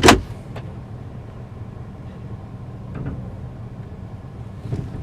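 A sharp thud right at the start, then a car engine idling steadily with a low hum.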